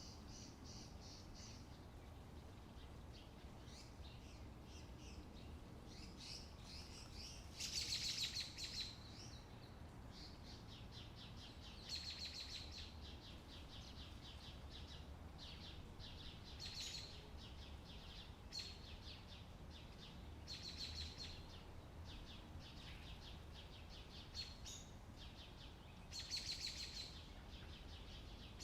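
Small birds chirping in repeated short, fast bouts, some louder than others, over a steady low rumble.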